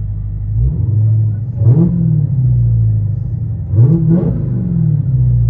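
Supercharged 6.2-litre Hemi V8 of a Dodge Charger Hellcat with a modified exhaust, idling with a deep note and revved twice. Each rev rises quickly and falls back to idle, the first about a second in and the second near four seconds in.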